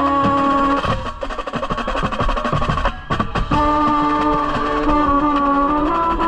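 Drum and bugle corps playing: held brass chords break off about a second in for a stretch of fast percussion strikes, then sustained brass chords come back in about three and a half seconds in.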